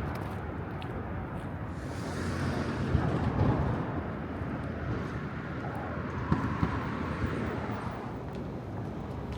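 Outdoor city ambience: a steady low rumble of traffic and urban machinery, swelling a little about three seconds in, with a few light knocks later on.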